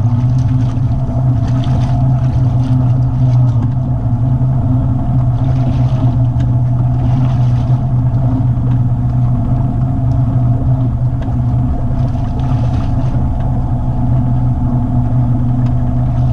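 ATV engine running steadily at a constant pitch, heard close up, with short bursts of hiss every few seconds.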